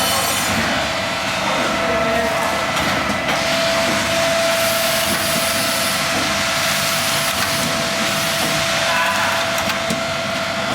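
Pneumatic piston filling machine running: steady machine noise over a constant whine, with a louder stretch of air hiss in the middle.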